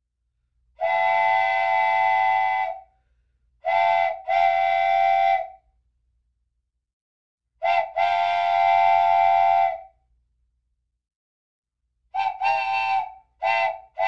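A multi-tone whistle, like a steam or train chime whistle, sounding on a steady chord in separate blasts. One long blast comes about a second in, a short-then-long pair around four seconds and another around eight seconds, then a run of short toots near the end.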